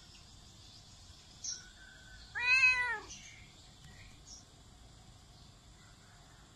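Domestic cat giving one loud meow, about two and a half seconds in, rising and then falling in pitch.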